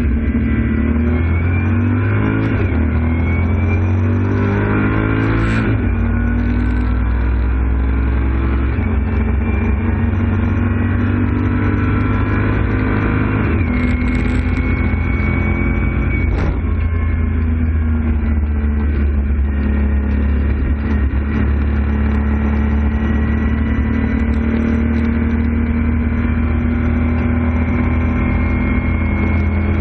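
In-cabin sound of a BMW M235i Racing's turbocharged straight-six accelerating hard out of a slow corner. The engine note climbs and drops with several quick upshifts over the first fourteen seconds or so, then holds a steady drone at high revs in top gear, flat out at high speed.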